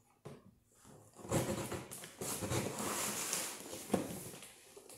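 Hands and scissors working at the packing tape on a large cardboard toy box: irregular rustling and scraping of cardboard, with one sharp knock about four seconds in.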